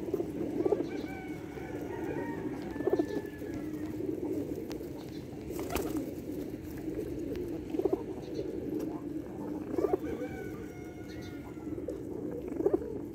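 A flock of domestic pigeons cooing steadily together while they feed, with a few short sharp knocks now and then.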